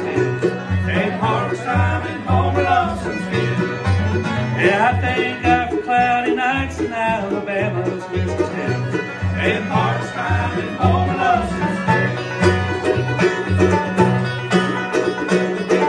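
Bluegrass band playing live: banjo, fiddle, mandolin and acoustic guitar over upright bass. The bass keeps a steady run of low notes underneath while the fiddle and banjo carry the melody.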